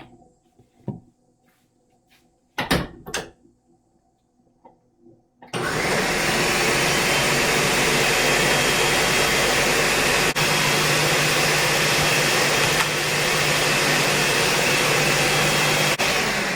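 A few light knocks, then about five seconds in an electric blender's motor starts and runs steadily with a low hum, blending banana, plain yogurt and peanut butter.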